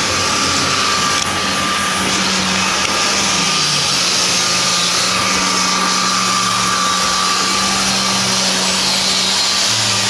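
Electric power tool motor running steadily under load: a constant whine over a loud even hiss, with no stops.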